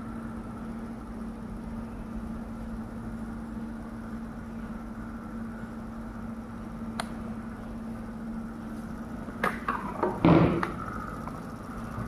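Home-built 12 V BLDC motor-generator spinning under a light load, giving a steady hum with a higher whine. A few knocks and clicks come near the end.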